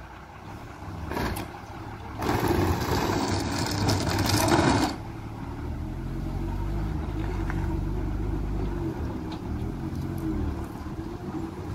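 Bus diesel engine pulling hard up a steep hairpin bend, taking the climb in one push. About two seconds in, a loud rushing noise lasts nearly three seconds; then the engine's steady hum carries on, its pitch wavering slightly.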